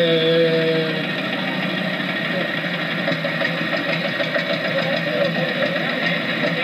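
Vintage tractor engines running as the tractors move slowly in a line. A steady pitched tone about a second long sounds at the start.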